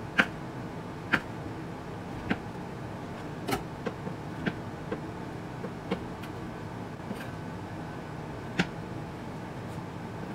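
Knife slicing baked chicken breast on a wooden cutting board: sharp taps of the blade striking the board, about one a second and unevenly spaced, over a steady background hum.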